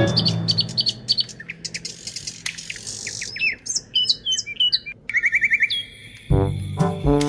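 Birds chirping, with quick up-and-down whistles and a fast trill about five seconds in. Music fades out in the first second and comes back in near the end.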